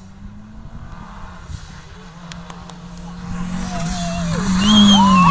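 Lancia Delta HF Integrale Evo Group A rally car's turbocharged four-cylinder engine approaching at speed. It grows louder from about three seconds in, revving up with a brief drop in pitch between gears near the end.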